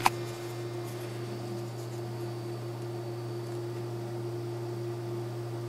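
Steady low electrical hum with a fainter steady higher tone over light hiss, and a single short click right at the start.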